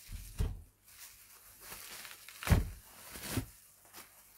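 A few scattered soft thumps and knocks in a small room, the loudest about two and a half seconds in.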